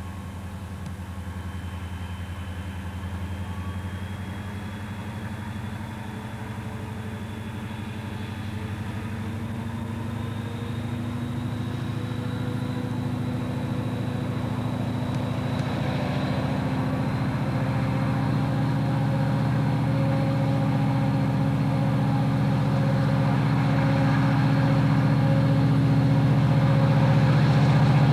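EMD GP40 diesel locomotive's turbocharged V16 engine idling, then throttled up as the train gets under way. The engine note and a high whine climb slowly in pitch and grow steadily louder through the second half.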